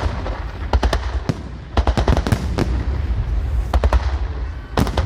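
Fireworks salute: rapid sharp cracks and bangs in clusters, over a steady low rumble.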